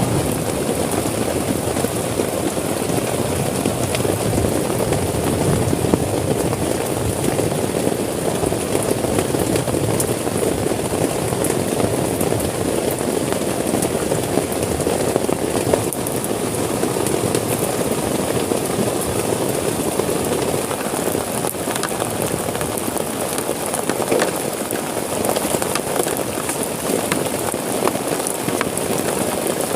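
Heavy rain on a tent, falling steadily as a dense patter of drops.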